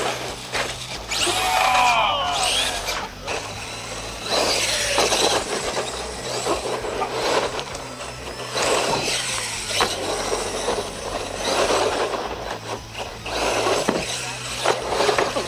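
Electric RC monster truck running on a dirt track: the motor whines in surges, its pitch gliding up and down as it is throttled, with occasional knocks from landings and impacts.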